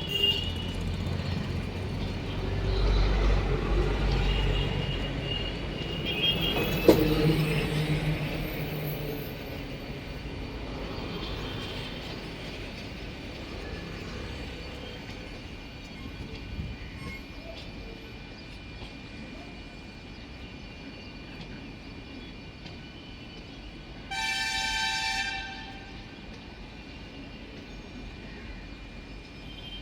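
Passenger train rumbling along the track, loudest in the first few seconds and fading away over about ten seconds. About 24 seconds in, the train's horn gives one short blast.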